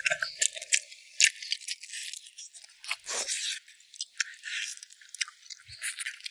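Close-up eating noises: wet chewing and gnawing on spicy braised pig trotters, heard as an irregular run of crackly clicks and smacks.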